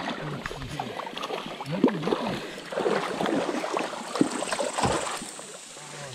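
A small Guadalupe bass splashing in shallow water at the riverbank as it is reeled in on a spinning rod, with water sloshing and a few sharp knocks from handling.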